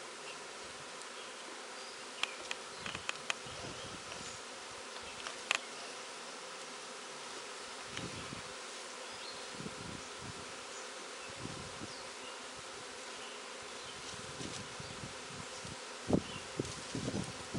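Honeybee swarm buzzing steadily, a dense many-bee hum, with a few faint clicks.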